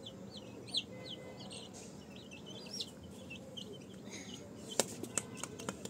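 Baby chicks peeping, a flock of short, high cheeps following one another several times a second. A few faint clicks come near the end.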